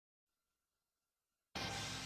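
Near silence, then strummed acoustic guitar music starts abruptly about one and a half seconds in.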